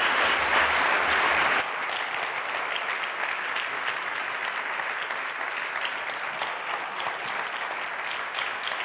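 Audience applauding steadily, louder for the first second and a half, then settling to an even level.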